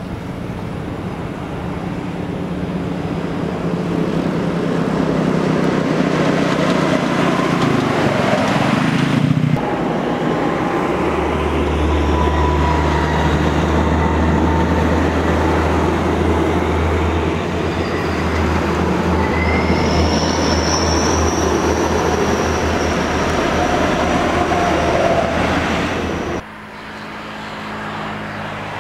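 Heavy diesel buses and trucks passing on a highway: a deep, steady engine drone with tyre noise that builds to a loud pass-by. The sound changes abruptly twice, about a third of the way in and near the end.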